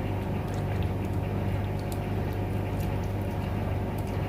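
Onion and tomato sauce simmering in a pan in its own juice, with faint bubbling and small pops over a steady low hum.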